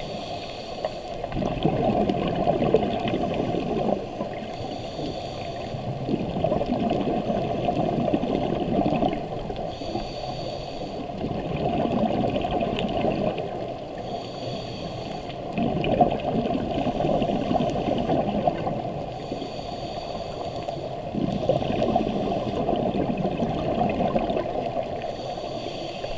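Scuba diver breathing through a regulator underwater. A short hissing inhalation comes about every five seconds, each followed by a long gurgling rush of exhaled bubbles.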